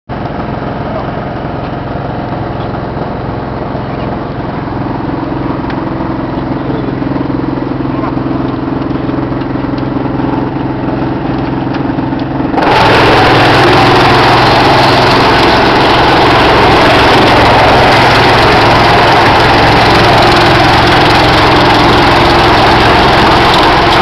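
Drum wood chipper running: a steady hum with several even tones, then about halfway through a sudden change to a much louder, steady rushing noise.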